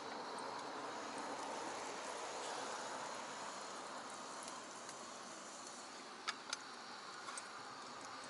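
Steady outdoor ambience of insects chirring, with a thin high tone held throughout. About six seconds in come two sharp clicks in quick succession.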